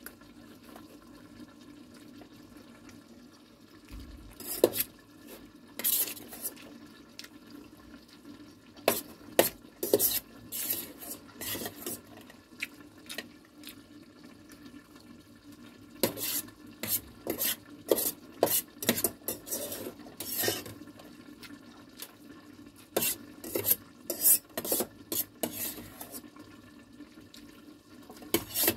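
Scattered, irregular clinks of metal utensils against dishes, some in quick runs, over a faint steady low hum.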